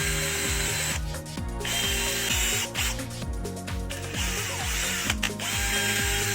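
Background music with a steady low beat, over a mechanical tool sound that clicks and runs in short spells.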